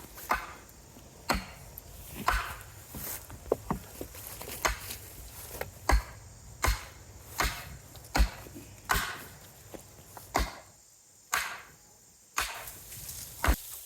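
Repeated hammer blows on wooden pallet boards, a steady run of sharp knocks about one a second, each ringing briefly, with a short pause near the end.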